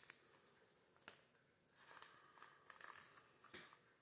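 Faint rustling and light ticks of Pokémon trading cards being flipped through by hand, a few soft card-on-card swishes in the second half.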